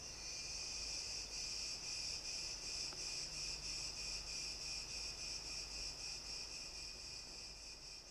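Crickets chirping in a steady high-pitched chorus, with a fast, even pulse.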